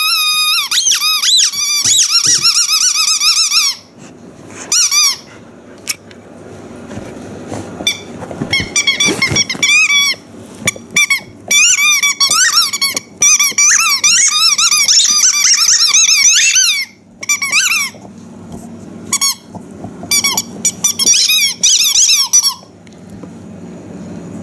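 Rubber squeaky toy squeaking over and over as a dog chews it: runs of rapid, wavering, high squeals broken by short pauses, with the longest run in the middle.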